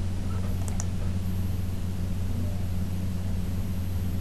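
A steady low hum with an even hiss over it, and two faint clicks a little under a second in.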